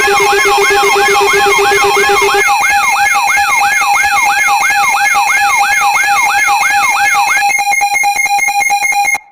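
Synthetic electronic alert siren: a tone sweeping down about three times a second over steady tones. Near the end it changes to a fast electronic pulsing, then cuts off abruptly.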